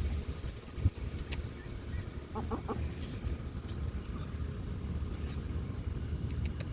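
Muscovy ducks giving a quick run of three short, soft calls about two and a half seconds in, over a steady low rumble, with a single low thump about a second in.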